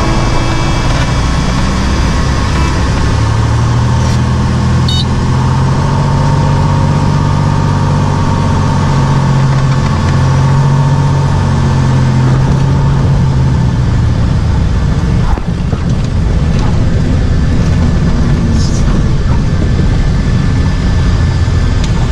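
Single-engine light airplane's piston engine and propeller droning inside the cockpit through the landing and rollout: a loud, steady noise with a low hum that eases off after the middle.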